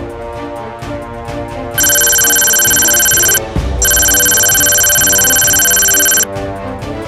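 Background music, with a loud, high electronic beep tone laid over it in two long pulses: one of about a second and a half starting about two seconds in, then after a short break one of about two and a half seconds.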